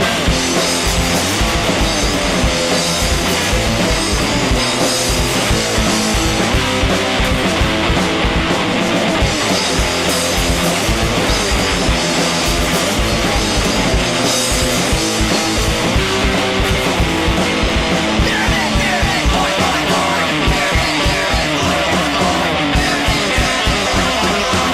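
Recorded punk rock from a guitar, bass and drums trio: fast, steady drumming under electric guitar and bass. A gliding lead guitar line comes in about three-quarters of the way through.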